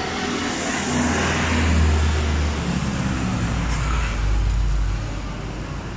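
Street traffic: a motor vehicle passing close by, its low engine rumble swelling about a second in and easing off near the end.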